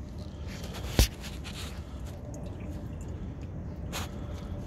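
Motor oil draining in a thin stream from the drain-plug hole into a plastic drain pan, pattering and splattering, over a steady low wind rumble on the microphone. A sharp knock about a second in, and a fainter one near the end.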